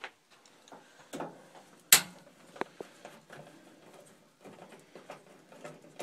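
Scattered small clicks and taps of a Torx screwdriver being handled and set against the metal top panel of a front-load washing machine, the loudest a sharp click about two seconds in.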